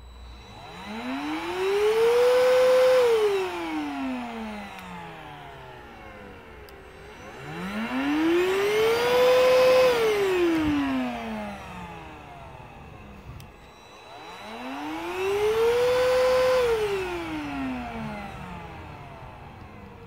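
Hoover Rhapsody cordless stick vacuum's motor spinning up with a rising whine, running at full speed for about a second, then cutting out and whining down; this happens three times, about every seven seconds. The motor switching itself off after a few seconds is the cleaner's protective auto-stop, tripped when the red filter nut is screwed down too tight on the filter's bearing and the cleaner reads that resistance as a full dust bin.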